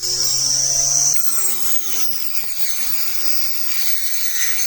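Small cordless battery grass cutter running with a high whine, its motor speed sagging and picking up again as the blade is pressed against wood that it fails to cut through.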